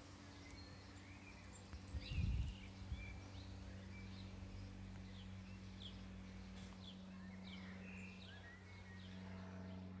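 Garden birds chirping and singing faintly in many short calls, over a steady low hum. About two seconds in there is a brief low rumble.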